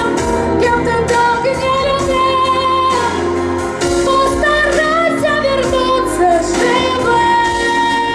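A woman sings a pop song in Russian over instrumental accompaniment, holding long notes with vibrato.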